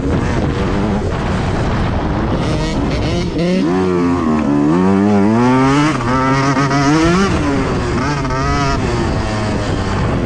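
Motocross dirt bike engine under a rider's throttle, the revs climbing in several long rises and dropping back between them.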